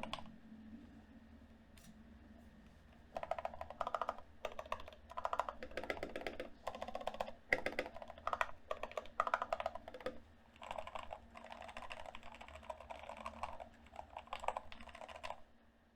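Typing on a Ganss GS87-D mechanical keyboard fitted with lubed Cherry MX Red linear switches and clipped, lubed stabilizers. After a pause of a few seconds, fast keystrokes come in bursts with brief gaps, then stop shortly before the end.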